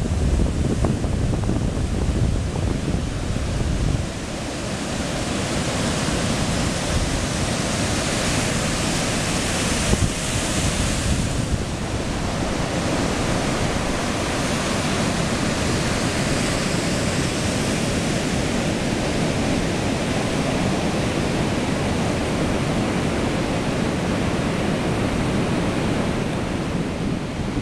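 Ocean surf breaking and washing up a sandy beach: a steady, continuous roar of waves. Wind buffets the microphone, most heavily in the first few seconds.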